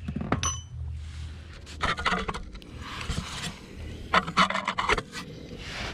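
Rubbing and scraping from gloved hands handling things right at the microphone, in several short spells with a few clicks, as the camera view is being shifted.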